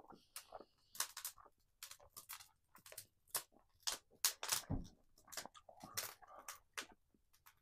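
Faint, close-up eating sounds of a man chewing chicken: irregular wet clicks, smacks and small crunches, busiest about four to six seconds in.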